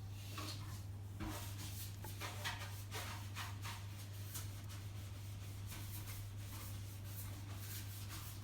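Irregular light scratching and rustling strokes, most frequent in the first few seconds and sparser later, over a steady low electrical hum.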